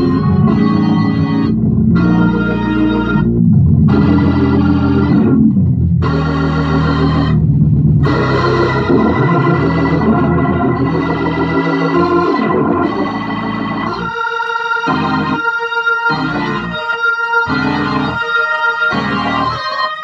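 Organ chords played through a Leslie 147 rotating speaker cabinet and its tube amplifier, freshly refurbished and being sound-checked. Long held chords with brief breaks, then from about two-thirds of the way in, short chords repeated a little more than once a second.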